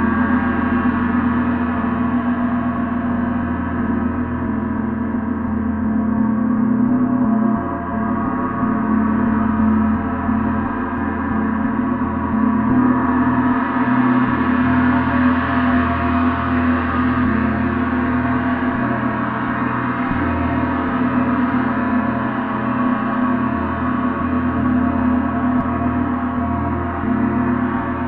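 Gong played continuously and energetically, a dense, sustained wash of many overlapping tones with no single strike standing out.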